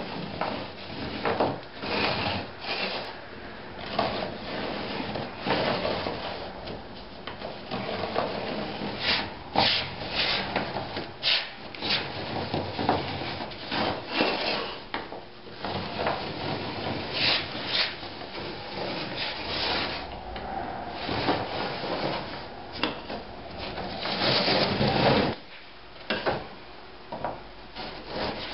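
A small wooden marking block with a pencil sliding along the edge of an OSB panel: wood scraping on wood and pencil lead scratching on the chipboard as a line is scribed parallel to the edge. Uneven, repeated scraping strokes, with a louder stretch near the end.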